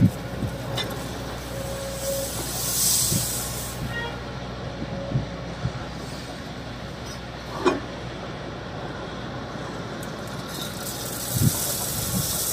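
Kobelco hydraulic excavator's diesel engine running steadily with hydraulic hiss as the boom and arm swing, and a sharp knock a little past halfway. Near the end, gravel pours from the bucket into the steel dump-truck body with a rushing rattle and thuds.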